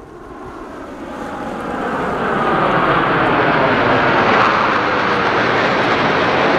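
Navy fighter jet flying overhead, its engine noise growing louder over the first two seconds or so and then staying loud and steady.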